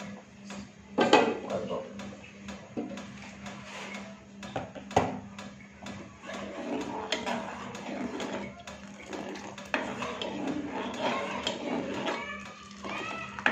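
Metal spoon stirring a liquid jelly mixture in an aluminium pot, scraping and clinking against the pot's sides and bottom, with a few sharper clinks, the loudest about a second in and about five seconds in.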